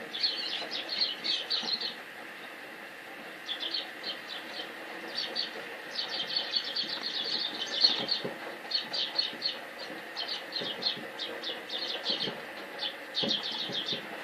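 Small birds chirping at a feeder, with many quick high notes coming in runs and short pauses between, and a few faint low knocks.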